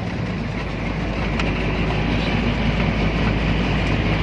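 Engine and road noise of a moving vehicle, heard from inside its cab: a steady low drone that grows gradually louder.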